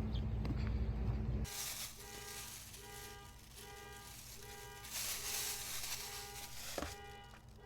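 A low rumble for about a second and a half, then a vehicle's electronic warning chime beeping steadily, about once every 0.6 seconds. Rustling and handling noise come and go over the beeps.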